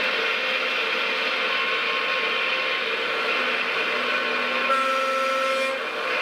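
Radio-controlled Liebherr 956 model excavator running: a steady mechanical whir from its electric motors and gearing. A steady whine joins about three and a half seconds in, and a brighter layer rides on top for about a second near the end as the machine moves.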